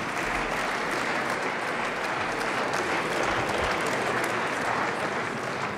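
Applause from a seated parliamentary audience: many hands clapping in a steady, dense patter, easing slightly near the end.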